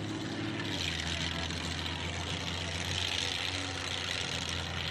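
Pickup truck engine running steadily at idle, with a steady hiss over it.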